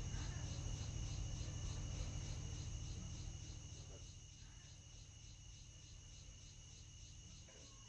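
Faint night-time crickets chirping in a steady, even rhythm over a low hum, fading down about halfway through.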